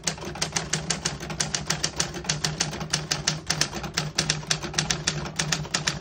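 1961 Smith-Corona Secretarial desktop typewriter being typed on at a quick, even pace, about six or seven keystrokes a second, each typebar striking the platen with a sharp clack.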